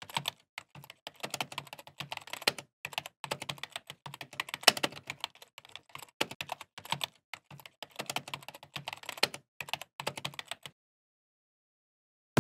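Keyboard typing: quick, irregular keystroke clicks, stopping shortly before the end.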